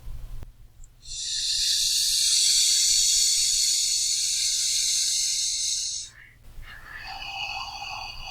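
Deep breathing: one long, loud breath lasting about five seconds, a steady airy hiss, then a quieter, softer breath begins about a second after it ends.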